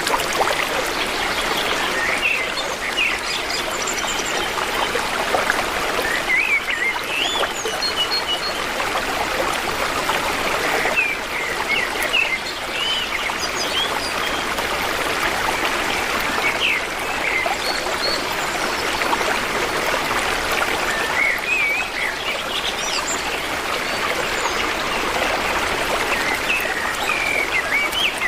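A stream of running water makes a steady rushing trickle, while small birds chirp and sing in short calls over it throughout.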